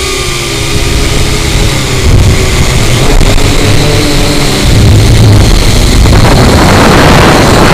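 Syma X8C quadcopter's motors and propellers heard through a camera mounted on the drone, with loud low wind buffeting on the microphone. The motor whine wavers in pitch, and a louder rush of wind and propeller noise builds from about six seconds in as the drone banks.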